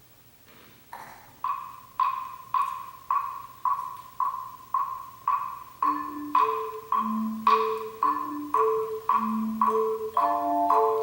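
A mokugyo (wooden fish) knocked at a steady beat, about two strikes a second, starting about a second in. About halfway through, tone chimes come in with slow, low sustained notes, and higher chime chords join near the end.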